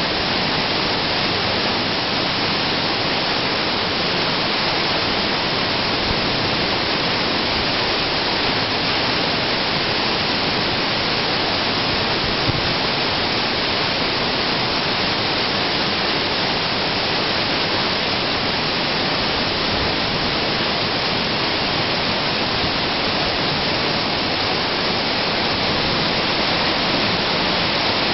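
Waterfall plunging into a rock pool: a loud, steady rush of falling water with no breaks.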